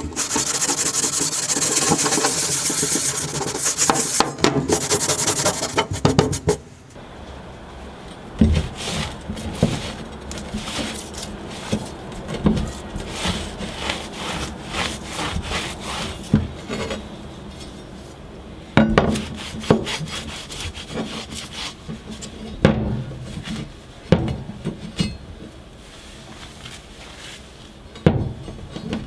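Hand tool rubbing and rasping hard against a workpiece, loud and dense at first. After about six seconds it drops to lighter, intermittent rubbing strokes with occasional knocks.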